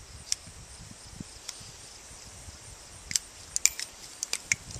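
Small, sharp metallic clicks and taps from a Nagant revolver being handled after firing: a couple of single clicks, then a quicker run of them about three seconds in, typical of spent cases being punched out of the cylinder. A steady high chirring of insects runs underneath.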